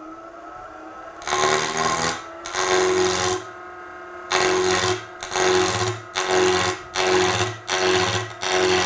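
Spindle roughing gouge cutting a spinning wood spindle on a Record Power Coronet Herald lathe: about eight rough cutting passes, each lasting half a second to a second, as the blank is roughed down to a cylinder. Beneath the cuts the lathe runs with a steady hum that rises in pitch over the first second.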